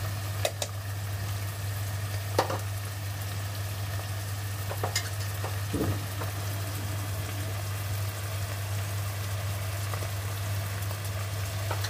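Tomato-onion masala sizzling as it fries down in a nonstick kadai, stirred with a plastic spatula that scrapes and taps the pan a few times, loudest about two seconds in. A steady low hum runs underneath.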